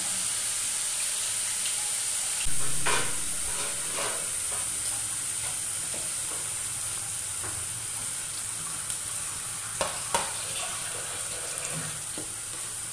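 Potato manchurian balls deep-frying in hot oil in a steel kadhai: a steady sizzle that grows louder about two and a half seconds in. A slotted spoon stirs through the oil and clicks against the pan a few times.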